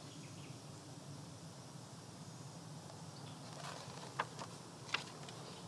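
Faint steady background noise, with a few short paper rustles and taps in the second half as a picture book's page is turned.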